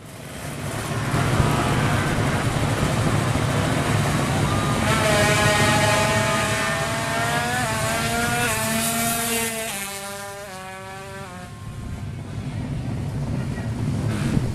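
Drag-racing motorcycle accelerating hard, its engine note climbing and dropping back in steps as it shifts up through the gears, then fading as it goes away down the strip.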